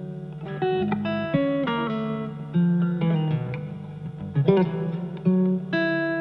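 A guitar playing an improvised melody of single plucked notes at an uneven, unhurried pace, some notes left ringing.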